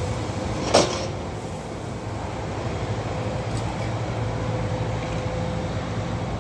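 Steady low drone of construction machinery engines running, with one sharp knock about a second in.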